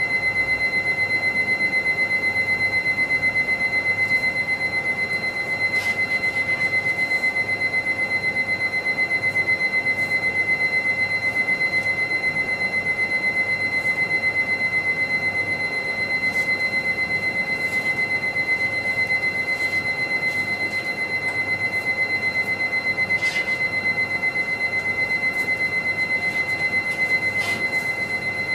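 A steady high-pitched electronic tone that pulses rapidly, over fainter lower tones, with a few faint clicks.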